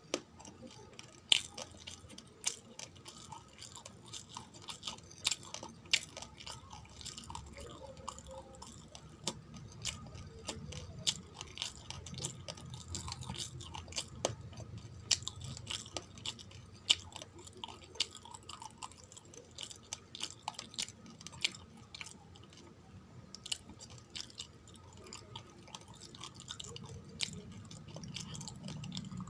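Close-miked chewing of dry uncooked rice grains: a dense run of irregular sharp crunches and cracks.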